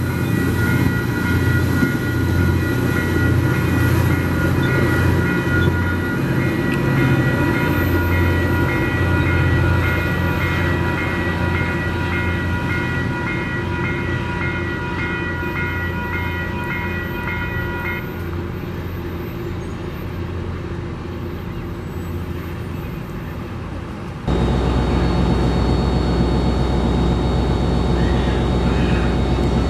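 Metro-North diesel push-pull commuter train running past, a steady engine drone with a high whine over it. Near the end it switches suddenly to a steadier, deeper engine hum.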